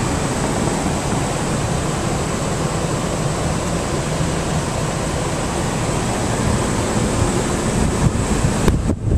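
Steady rushing noise inside a Chevrolet truck's cabin, with a faint high-pitched whine over it. Near the end it turns rougher and more uneven.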